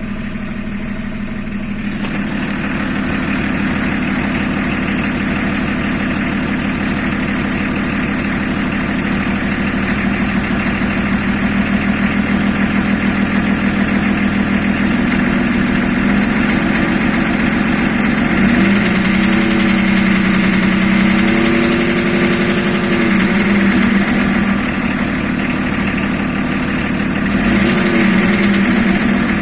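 BMW E34 engine running at idle, its speed rising and falling a few times in the second half; the engine has a knock.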